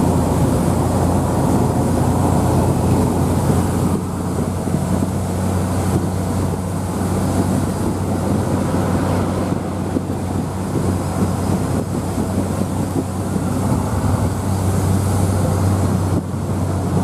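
Steady engine drone and road noise inside a vehicle cruising at highway speed, with no letup.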